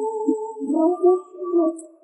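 Background music: sustained held notes with a melodic line moving over them.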